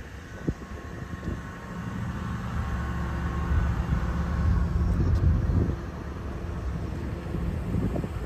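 Excavator engine running an Allied Ho-Pac 2300 hydraulic plate compactor attachment, a low, steady machine sound. It builds over the first couple of seconds, is loudest around the middle, dips briefly, then builds again near the end.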